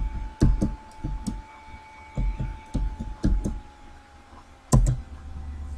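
Computer keyboard typing: irregular keystrokes, each a dull thud with a click on top, ending in one louder keystroke near the end, followed by a steady low hum.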